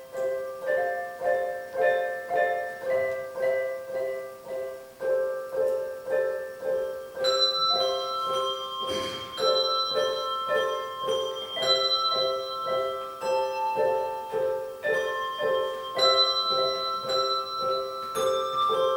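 Handbell choir playing a piece, the bells struck in a steady rhythm and left ringing, with higher bells joining about seven seconds in.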